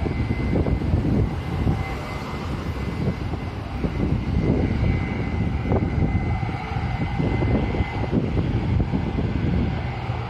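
Airliner jet engine noise with a thin steady whine, mixed with strong gusty wind buffeting the microphone.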